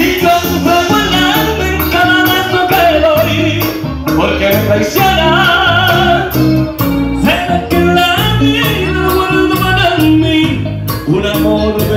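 A male singer singing a bachata live into a microphone, over accompaniment with a stepping bass line and quick, even percussion strokes.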